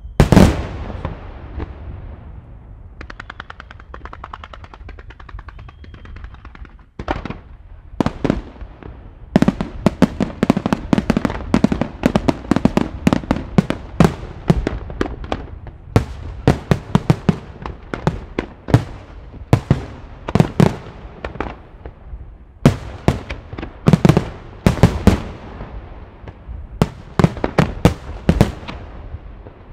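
Aerial fireworks shells bursting in a display. One loud report opens it, followed by a few seconds of rapid small pops. From about seven seconds in comes a dense barrage of shells going off in quick succession, with many sharp reports.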